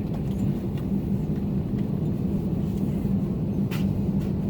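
Airliner cabin noise aboard an Airbus A321neo with its CFM LEAP-1A engines running: a steady low rumble with a constant hum. A single brief click sounds about three-quarters of the way through.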